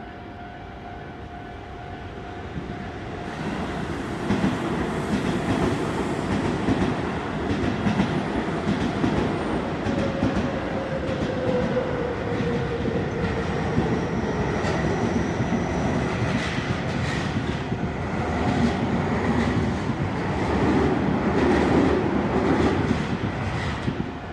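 A train passing over a level crossing: its wheels clatter over the rails in a loud, rough rush that builds from about two seconds in and ends just before the close, with repeated clicks throughout. Before the train arrives, the crossing's warning signal sounds as steady tones.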